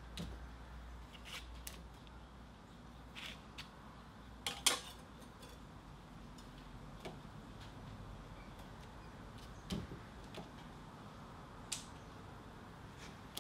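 Scattered metallic clicks and clinks of a spanner working the steel adjustment bolts of a belt grinder, with the loudest knock a little over a third of the way in.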